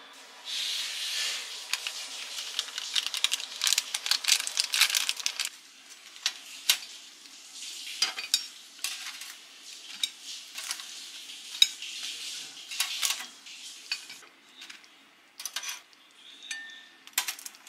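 Sliced rice cakes sliding and clattering out of a stainless steel pot into a cast-iron pan, with metal scraping. After about five and a half seconds this gives way to scattered clicks and taps of stainless tongs against a wire rack and ceramic plates as fried snacks are set down.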